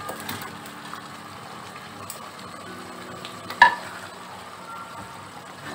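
Chilli sauce bubbling and sizzling in a non-stick pan as fried chicken pieces are tipped in and stirred with a wooden spatula. One sharp knock about three and a half seconds in.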